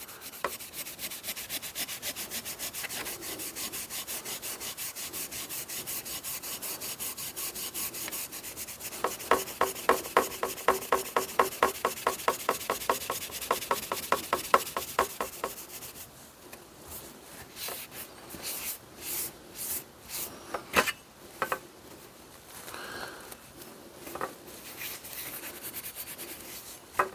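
Steel wool scrubbing back and forth over a wet, rusty steel axe head in quick, even strokes, pressed hard to take off surface rust. The strokes get louder about nine seconds in. After about sixteen seconds the scrubbing stops, and a cloth wipes and rubs the axe head dry in scattered strokes.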